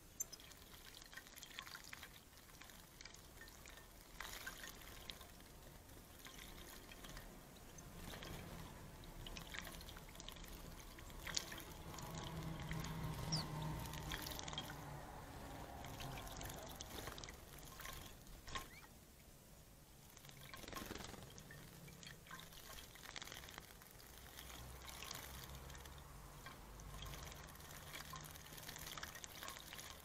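House sparrows bathing in a shallow dish of water: small scattered splashes and flicks of water from their wings, faint, busiest around the middle.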